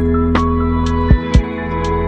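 Background music: soft instrumental with sustained chords and a steady beat, with two deep bass thumps about a second in.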